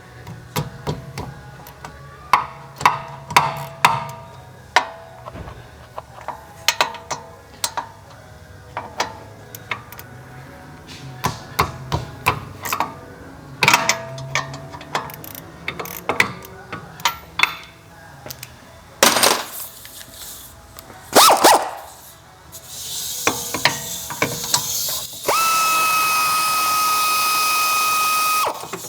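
Hand tools on the wheel bearing's bolts: repeated ratchet clicks and metal tools knocking and clinking against the hub as the bolts are worked loose. A loud steady whine runs for about three seconds near the end.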